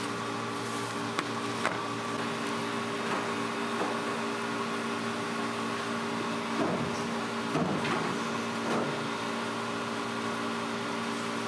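Steady mechanical hum of an indoor vertical farm's ventilation and climate equipment, holding several fixed low tones. Lettuce leaves rustle briefly as a head is handled, three times between about six and nine seconds in.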